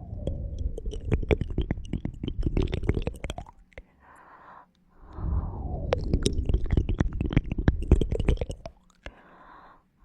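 ASMR ear cleaning close on a microphone: a tool rubbing and scratching in the ear, a deep rumble full of crackly clicks. It comes in two bouts of a few seconds each, with a soft hiss between them.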